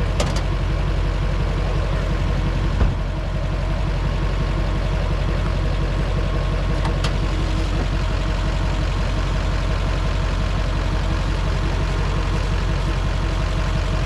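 LBZ Duramax 6.6-litre turbo-diesel V8 idling steadily, hot from a hard burnout. There is a brief knock about three seconds in.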